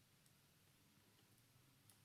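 Near silence with two faint, short clicks, one just after the start and one near the end, over a low steady hum.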